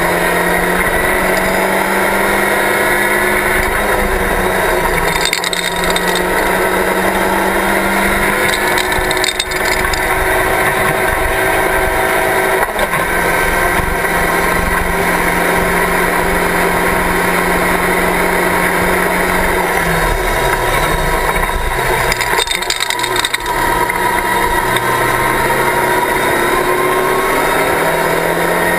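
Locost Seven-style race car's engine at high revs, heard from the open cockpit at racing speed over a constant rush of noise. The note holds steady with a couple of brief dips, falls about twenty seconds in as the car slows, then climbs again as it accelerates.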